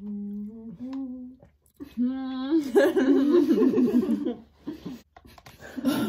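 A girl humming a few steady, held notes with her mouth closed. About two seconds in, the hum slides up and gives way to loud, overlapping voices and laughter.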